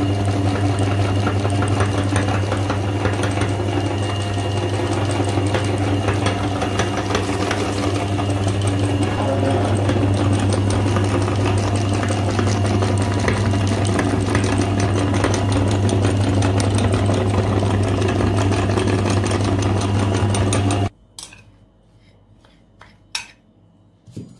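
Electric meat grinder running with a steady motor hum as it forces a dry, crumbly mix out through its cutting plate. Near the end the motor switches off abruptly, followed by a few light knocks.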